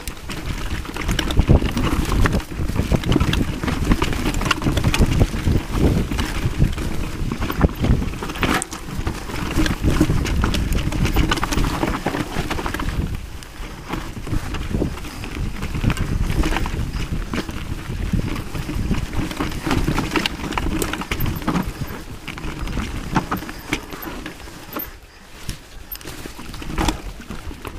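Mountain bike running down a rough dirt singletrack: tyres rolling over dirt and roots, with many quick knocks and rattles from the bike over bumps, and wind rushing on the microphone.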